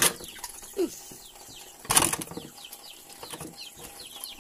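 Birds chirping in short falling notes throughout, with one short noisy rush, like a splash or rustle, about two seconds in.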